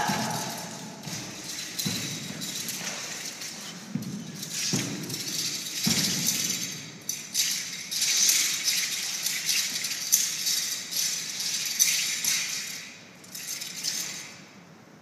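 Wushu spear being swung and whipped, its long shaft swishing in repeated swells, with several dull thuds in the first half; it quietens in the last two seconds.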